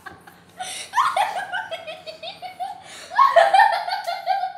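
Two runs of high-pitched laughter in quick pulses, one about a second in and a louder one starting after about three seconds.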